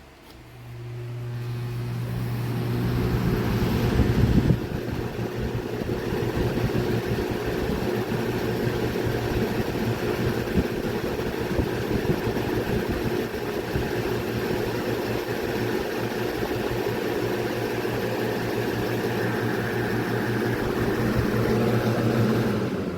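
Portable electric fan switched on and running: a steady motor hum under the rush of moving air, building over the first few seconds, with a brief thump about four and a half seconds in. The motor stops just before the end.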